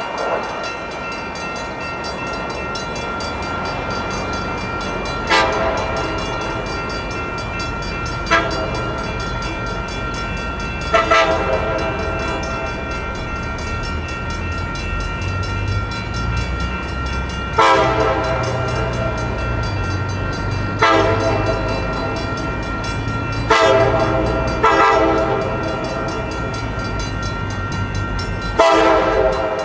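Multi-chime air horn of a Coaster commuter train's leading cab car, sounding about eight blasts, some short and some long, as the train approaches. The low rumble of the train grows from about halfway through.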